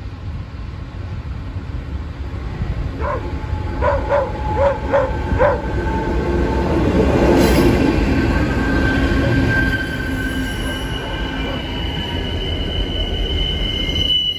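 Pacific National diesel-electric freight locomotive running past close by, its engine rumble building to a peak about seven seconds in. Container wagons follow with wheels squealing on the curve in steady high tones. A run of five or six short barks is heard over the approaching engine about three seconds in.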